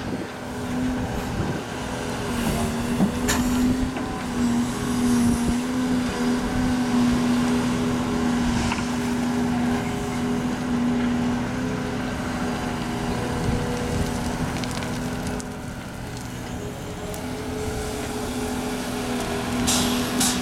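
Volvo EC380E L crawler excavator's diesel engine and hydraulics running steadily under load with a constant droning tone while it digs and swings a bucket of sand. A brief rattle near the end as the bucket dumps its load.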